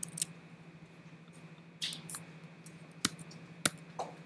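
About half a dozen sharp computer mouse and keyboard clicks, spaced irregularly, as lines of code are pasted and selected in a text editor. A faint steady electrical hum runs underneath.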